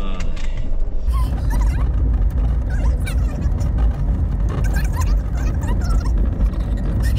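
Van driving a rough gravel road, heard as a heavy low rumble of road and engine noise sped up to triple speed. From about a second in, short high squeaky chirps are scattered over the rumble.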